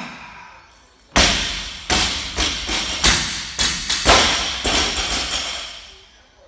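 Several loaded barbells with bumper plates dropped from overhead onto rubber gym flooring: a loud thud about a second in, then a series of further thuds and clatter over the next few seconds, dying away near the end.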